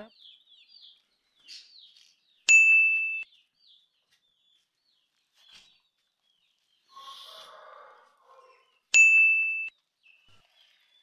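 A short, high ding that sounds the same both times, heard twice about six seconds apart, with chicks peeping faintly in between and a brief soft rustle.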